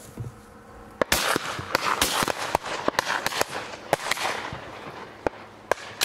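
A rapid volley of shotgun fire from several hunters: about fifteen shots starting about a second in, close together at first and thinning out near the end. Some are sharp and near, others more distant and trailing an echo. Hunters are firing at ducks flying over at dusk.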